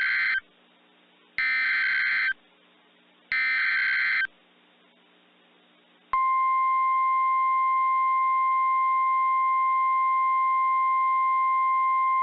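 Emergency alert signal of a weather radio warning: the end of one burst and two more bursts of the SAME digital header data, a raspy warble about a second each with a second's gap between them. About six seconds in, the steady single-pitch 1050 Hz NOAA Weather Radio warning alarm tone starts and holds, marking a new warning about to be read.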